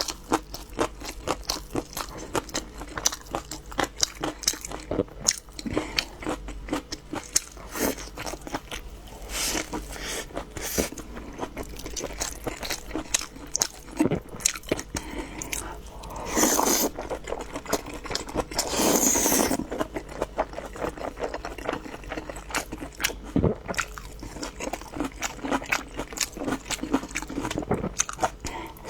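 Close-miked chewing and biting of crunchy food, with many rapid crunches in a row. Twice in the middle there is a louder, noisier stretch lasting about a second.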